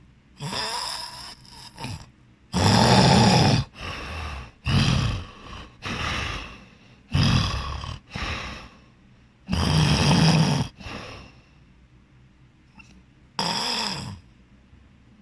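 A person snoring loudly, a rasping snore on each breath every second or two, with a pause of a couple of seconds before one more snore near the end.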